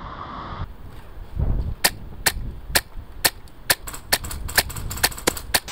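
Airsoft gun firing about fifteen sharp single shots in quick succession from about two seconds in, the pace picking up toward the end. Wind rumbles on the microphone underneath.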